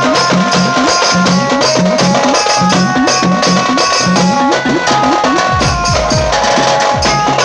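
A pad band playing loud dance music: a melody of held notes over rapid drum hits that drop in pitch, several a second. Deep booming bass joins about five and a half seconds in.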